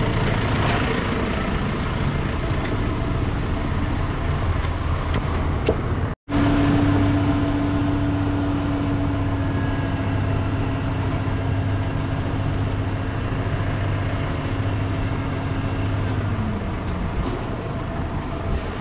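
Heavy vehicle engines running in a busy yard. After a brief cut about six seconds in, one engine idles with a steady hum, which slows slightly near the end.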